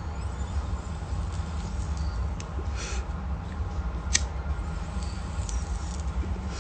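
A man taking a hit from a pipe of strong 100% tobacco, over a steady low rumble. A brief breathy hiss comes about three seconds in, and a sharp click about a second later.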